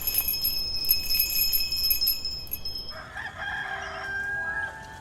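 A rooster crows once, a call of about a second and a half starting about three seconds in, after a few seconds of high, shimmering chirping.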